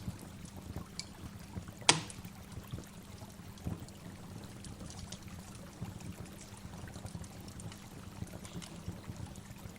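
Running water from a waterfall recording, splashing and trickling steadily with many small splashes. One sharp click stands out about two seconds in.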